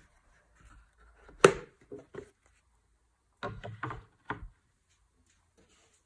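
Handling knocks as a cardboard presentation box and a sheathed fixed-blade knife are set down on a wooden tabletop. There is one sharp knock about one and a half seconds in, then a quick run of taps and clatter between three and a half and four and a half seconds in.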